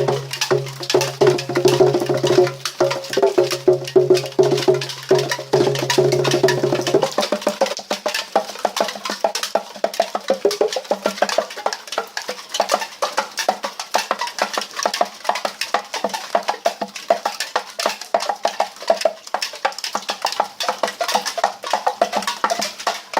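Rain drops striking an aluminium beer can: a quick, dense patter of short taps. A steady low hum runs underneath for the first seven seconds or so, then stops.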